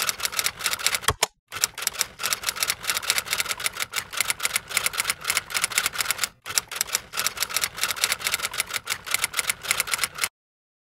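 Typing sound effect: rapid, steady typewriter-style key clicks that keep pace with on-screen text being typed out. Two brief pauses break the run, and it cuts off suddenly near the end.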